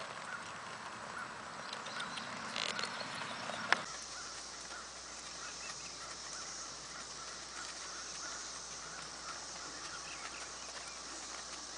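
Outdoor ambience dominated by a steady, high-pitched drone of insects, which comes in after a sharp click about four seconds in. Before the click there are fainter scattered outdoor sounds.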